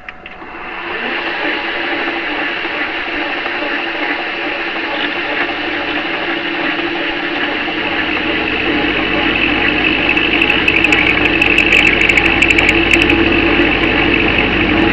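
Metal lathe running, its tool cutting into a 7/16 in. steel socket that has been softened by heating and slow cooling. A steady machining drone swells in during the first second and grows a little louder later, with a run of sharp ticks from about ten seconds in.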